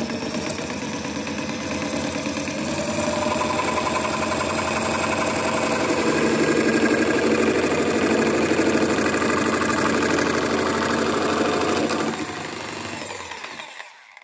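Jigsaw (Bosch PST 800 PEL) sawing a slot in an acrylic glass panel, the blade cutting steadily. At about twelve seconds the sound drops, then the motor winds down and stops.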